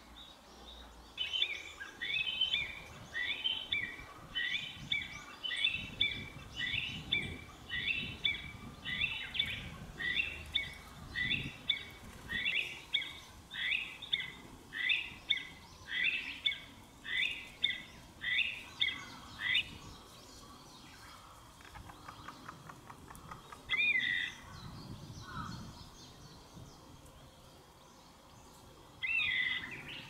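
Chinese bamboo partridge calling loudly: a long run of sharp, falling call notes at about one a second for nearly twenty seconds, then two single calls later on. The uploader takes the calling for a threat aimed at an intruder.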